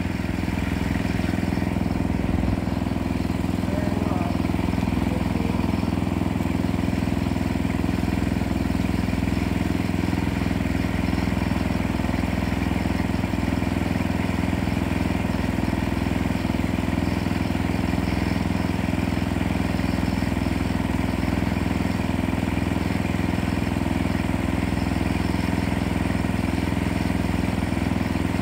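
Engine idling steadily at an even, unchanging pitch.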